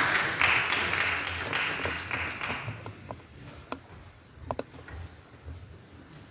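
Congregation applauding, dying away about three seconds in, followed by a few scattered taps and knocks.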